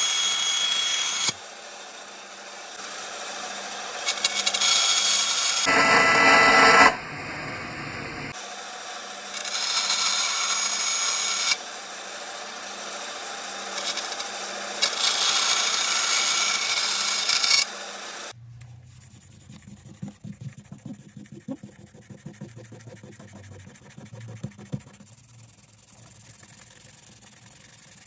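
Small benchtop bandsaw running, its blade cutting through a thin white sheet template in several loud hissing stretches, with a steady motor hum between cuts. From about two-thirds of the way in, it gives way to quieter fast scratchy strokes of the template's edge being sanded by hand.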